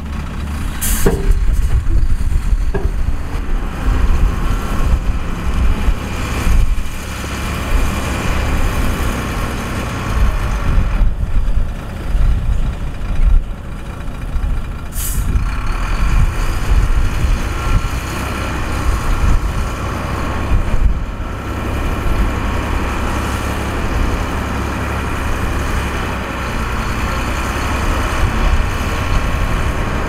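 SHACMAN dump truck's diesel engine running steadily, with short air-brake hisses about a second in and again around fifteen seconds in.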